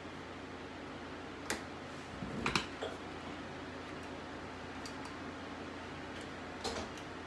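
Steady faint room hiss broken by a few sharp clicks and knocks from hair tools being handled, a comb and a flat iron. There is one click about a second and a half in, a small cluster around two and a half seconds, and another near the end.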